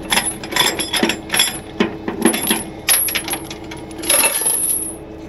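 A steel chain rattling and clinking as it is pulled out of a tow truck's frame-clamp bracket: a quick, irregular run of metallic clinks that stops shortly before the end.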